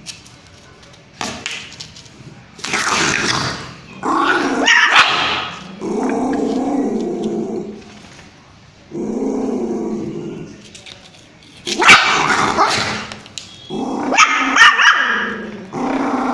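A puppy barking and growling in repeated bouts, each a second or two long, with short pauses between them.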